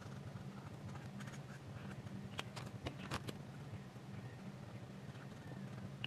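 Marker tip tapping and stroking on paper: a few light clicks about halfway through, over a steady low hum.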